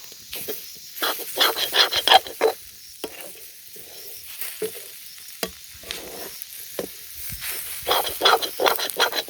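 Spatula stirring and scraping tomato and spice masala as it fries and sizzles in an iron pan. Two bouts of quick scraping strokes frame a quieter stretch of sizzling, with a few light knocks against the pan.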